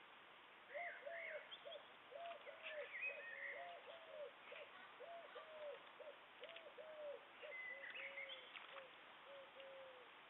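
A bird giving a long series of short hooting notes, about two a second, starting about a second in, with small birds chirping briefly over them twice.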